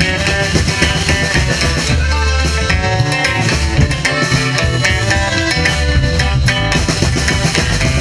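Live norteño band playing an instrumental break between sung verses: button accordion carrying the melody over bajo sexto strumming, electric bass and drum kit in a steady beat.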